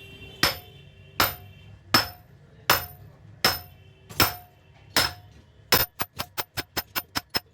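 Hammer blows on metal with a ringing note as a metal sleeve is driven into the bored-out hub of a 22 HP Chinese diesel engine's flywheel. There are eight heavy, evenly paced blows a little under one a second, then a quick run of lighter taps about six a second near the end.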